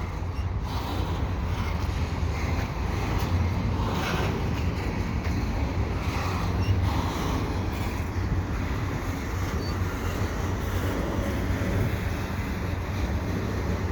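Slow-moving CN double-stack intermodal freight cars rolling past, a steady low rumble of wheels on rail with no break.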